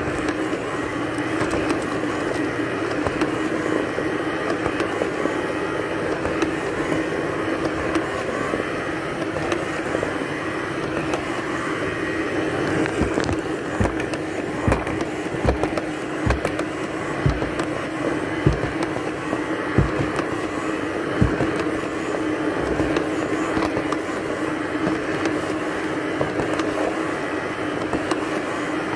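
Robot vacuum cleaner running with a steady hum from its motor and brushes. About halfway through comes a string of about ten low knocks, roughly one a second.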